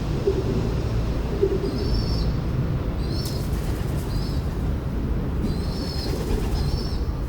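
Multi-storey car park ambience: a steady low rumble of city traffic, with short high bird chirps repeating through it from about two seconds in.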